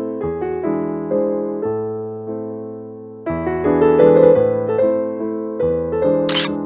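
Background music: a gentle electric piano tune of single held notes and chords. About six seconds in, a brief hissing burst cuts across it.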